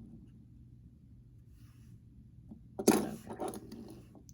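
Plastic Lego pieces clattering: a sudden sharp rattle of small hard parts about three seconds in, dying away within a second.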